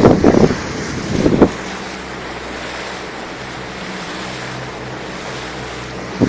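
Boat engine running steadily with water and wind rushing past, and two loud short rushes of noise in the first second and a half.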